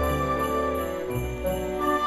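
Instrumental background music: held pitched notes that change every half second or so over low bass notes.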